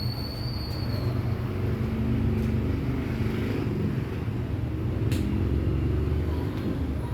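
A steady low rumble like a motor vehicle's engine running, slightly stronger in the middle. One sharp click about five seconds in.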